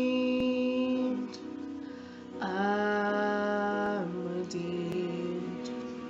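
The song's ending: a woman's sung last note is held for about a second, then the instrumental accompaniment plays closing chords that ring and fade.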